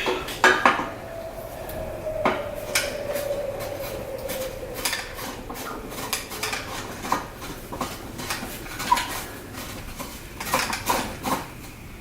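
Metal parts of the Totem Pole bike rack clinking and knocking together as it is assembled: a scatter of sharp clicks and knocks. A knock about two seconds in leaves a ringing note that fades over a few seconds.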